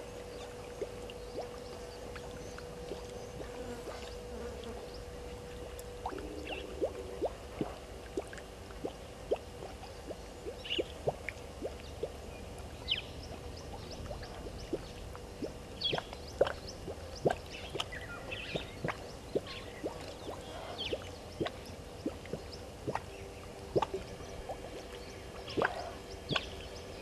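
Outdoor bush ambience: short, high bird chirps scattered throughout, and many irregular small clicks from about six seconds in. A steady low hum is heard for the first few seconds.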